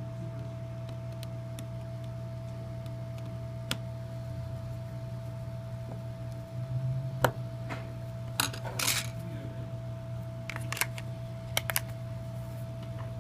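Scattered small clicks and taps of a Samsung Galaxy S2 phone and its small parts being handled during a power-button repair, the loudest a sharp click about seven seconds in and a few quick clusters after it, over a steady electrical hum.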